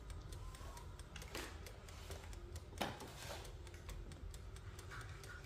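Faint steady ticking of an air fryer's mechanical wind-up timer, with two louder knocks about a second and a half and three seconds in as the appliance's power plug is pulled for moving to another socket.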